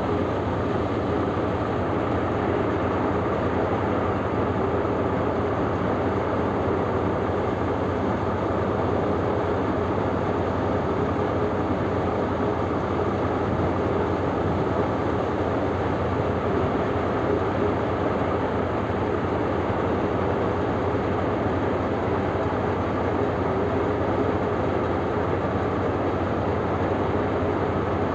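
AMAN thresher running steadily while pearl millet (bajra) heads are fed into it: a constant, unchanging machine noise with a steady hum.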